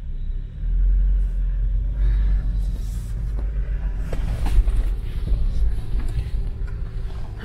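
Low rumble in the cabin of a 2020 Land Rover Defender 110 driving slowly over a rutted, muddy track, with a few knocks as it jolts over bumps.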